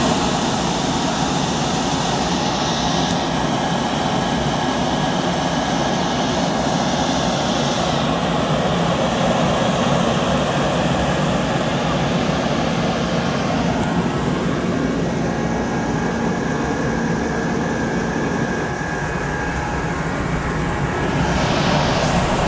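Industrial centrifugal fan running: a steady rush of air with a low, even hum under it.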